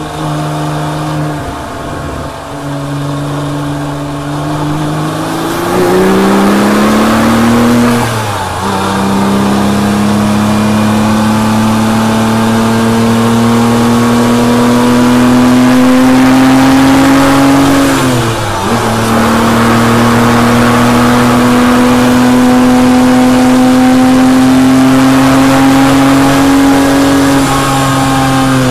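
Porsche 997.1 Turbo's twin-turbo flat-six engine heard from inside the cabin, running at full throttle with its pitch climbing steadily through the gears. It shifts up twice, about eight seconds in and again about eighteen seconds in (third to fourth to fifth gear), and reaches about 5,400 rpm near the end.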